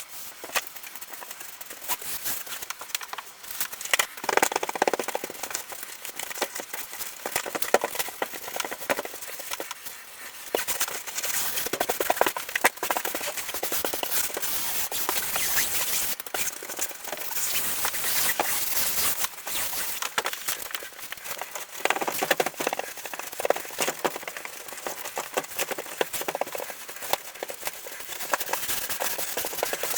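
Scratchy rubbing and crackling with scattered sharp clicks, uneven in loudness: hand work on a car headliner's fabric and foam-backed board.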